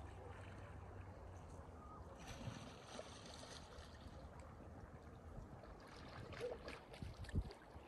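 A small boat on the water, with faint water lapping and splashing against it. Several short knocks and clicks near the end, the loudest things here.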